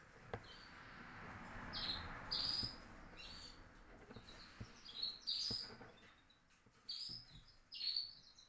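Canaries giving short, high chirps over and over at an uneven pace, with a soft hiss in the first few seconds.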